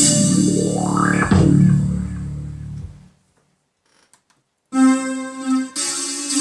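Korg Pa50SD arranger keyboard voices played over MIDI from a controller keyboard. A keyboard passage with a rising pitch sweep about a second in fades out by three seconds. After a short silence with a couple of faint clicks, a new sustained, bright pitched tone starts suddenly just before five seconds, as the next sound is tried.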